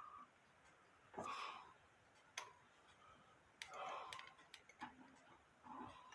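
Faint, irregular clicks and light handling noises from a grandfather clock movement's metal parts being handled at the bench.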